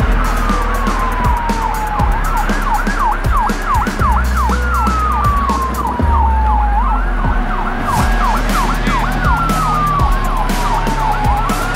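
Electronic vehicle siren cycling between a slow falling wail and a fast repeated yelp, changing pattern every two seconds or so, over a steady low rumble.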